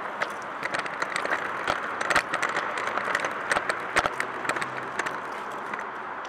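Heeled leather shoes clicking on brick paving, a run of sharp, uneven footsteps over a steady background hiss, fading toward the end.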